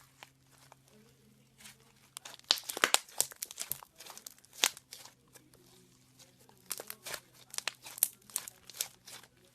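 Slime being squeezed and poked by hand: irregular sticky crackles and popping clicks, densest about two to three seconds in, then in scattered runs.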